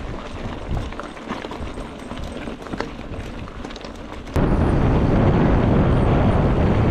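Mountain bike rolling over a rough trail, tyres crunching with rattling clicks. About four seconds in, loud wind rumble on the camera microphone suddenly takes over.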